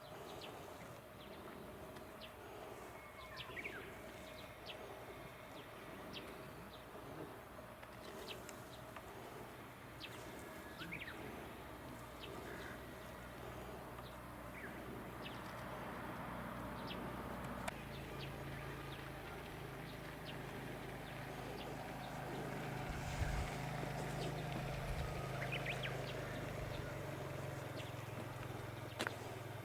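Outdoor ambience with faint, scattered bird chirps and small clicks over a low steady hum that grows louder about halfway through.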